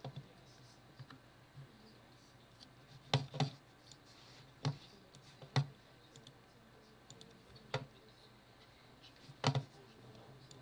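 Computer mouse clicking, a handful of sharp clicks spread out, some in quick pairs.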